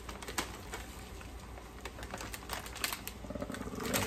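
Plastic bag of frozen broccoli stir-fry crinkling as it is handled and turned over, with the irregular crackle of steaks simmering in teriyaki sauce in a skillet underneath.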